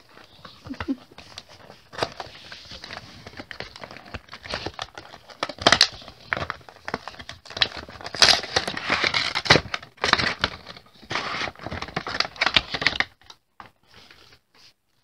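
Toy packaging crinkling and tearing as a boxed figure is unpacked right at the microphone, a dense run of crackles and rustles that stops about two seconds before the end.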